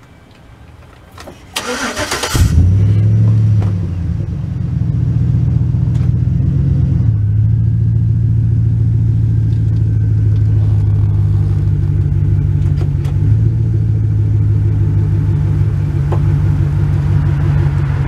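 Pickup truck engine cranked by the starter and catching about two seconds in, revving briefly, then running steadily at low speed as the truck backs up onto the flat tire.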